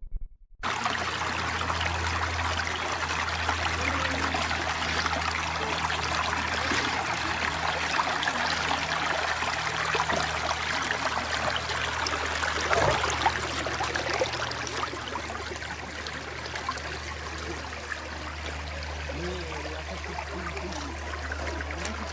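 Creek water running steadily, with a steady low hum underneath and one brief knock about 13 seconds in.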